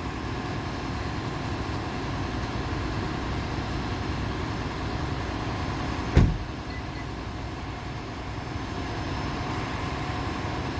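Flatbed tow truck's engine idling steadily, with one loud thump about six seconds in.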